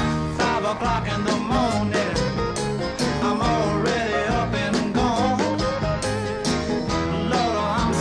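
Music: a song with a singing voice over guitar, bass and a steady drum beat.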